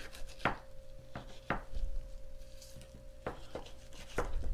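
Fillet knife tapping and scraping against a wooden cutting board as the skin is cut away from a fish fillet: about half a dozen irregular sharp knocks over a faint steady hum.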